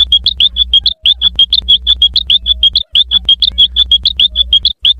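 Cartoon sound effect of rapid high chirps, about ten a second, over a low hum. It plays as a short loop that breaks off and restarts about every two seconds.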